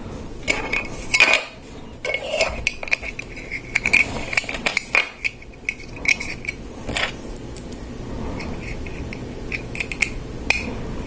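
Small hard plastic Lego Technic parts handled and clicked together: many short clicks and clatters with some scraping, as pins are fitted to a small pneumatic piston.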